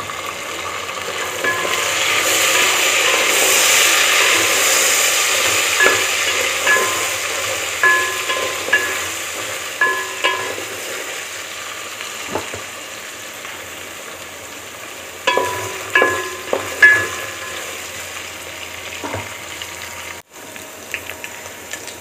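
Chicken pieces sizzling in a metal cooking pot, soy sauce just added: the sizzle swells loud in the first few seconds, then eases to a steady frying hiss. A spoon clinks and scrapes against the pot as it is stirred, in short clusters around the middle and again later.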